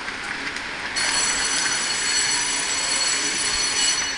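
Beijing subway train noise in the station: a steady high-pitched ringing whine of several tones starts suddenly about a second in and holds until near the end, over a steady station rumble.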